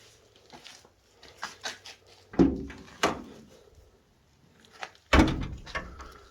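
Two heavy thuds, about two and a half seconds apart, with a sharp click and lighter knocks between them.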